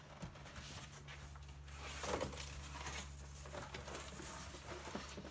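Cardboard air fryer box being handled and its flaps pulled open: rustling and scraping of cardboard with a few light knocks, loudest about two seconds in.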